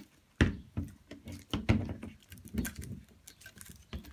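Hands working at a hard-to-open metal card tin and its plastic packaging: irregular clicks, taps and knocks, the loudest about half a second in and again near the middle.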